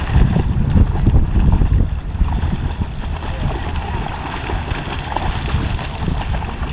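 Two dogs running and splashing through shallow lake water, loudest in the first two seconds, over a steady low rumble of wind on the microphone.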